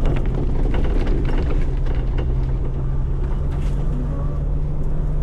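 Side-by-side UTV engine running at a steady pace as it is driven along a rough trail, with scattered knocks and rattles from the ride.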